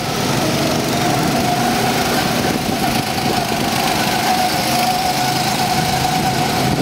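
Small go-kart engines running steadily as several karts circle the track, with a steady whine through most of it.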